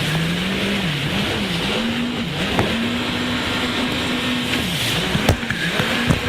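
Jet ski engine running at speed, its pitch dipping briefly several times and picking back up, over a steady rushing noise. A couple of sharp knocks about five seconds in.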